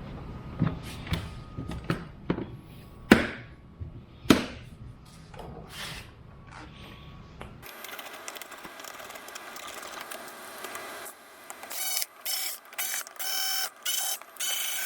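Clicks and knocks of parts and tools being handled, then a small electric motor whining in about six short, separate bursts near the end.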